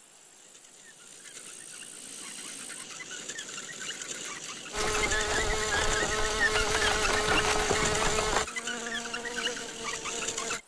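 A fly buzzing, growing louder over the first few seconds. It becomes a loud, close, steady drone with a low rumble under it, then drops abruptly to a quieter buzz that cuts off suddenly.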